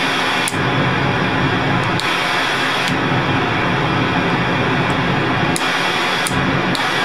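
1977 Minimoog Model D's noise source playing a steady hiss, switched between white and pink noise with a few small clicks along the way; the cleaned white/pink noise switch is working.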